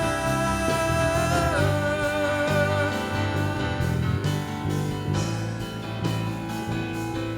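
Live worship band music: a singer holds a final note that steps down and fades out about three seconds in, over guitar and bass, which carry on alone.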